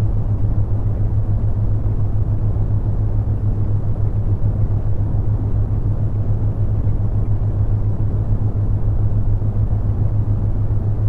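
Synthetic brown noise: a steady, deep rushing hiss with most of its weight in the low end, overlaid with a constant low hum from a theta-wave tone.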